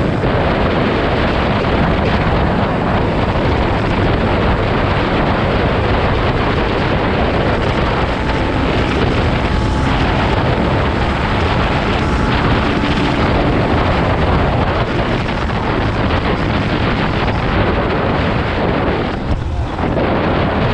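Heavy wind buffeting on the action-camera microphone at about 85–90 km/h, with a Yamaha Exciter's single-cylinder four-stroke engine running steadily underneath.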